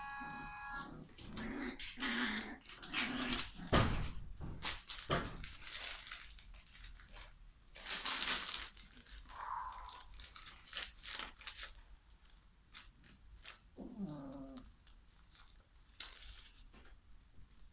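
American Hairless Terrier puppies playing together: short growls, squeaks and whines among scuffling paws and rustling paper, with a falling whine or growl about two-thirds of the way through.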